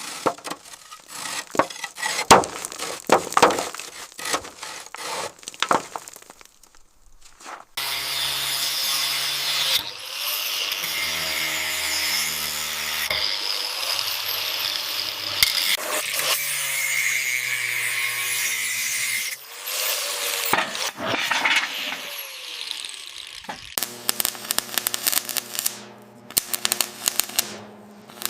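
Workshop tool work: a run of sharp knocks and scrapes, then a power tool running loudly and steadily for about fifteen seconds, then quick clicking again near the end.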